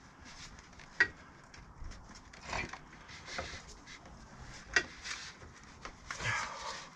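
Clunks and scraping of a motorcycle rear wheel and its spacers being worked into the swingarm, with two sharp knocks, one about a second in and one near five seconds, among softer scrapes and rustling.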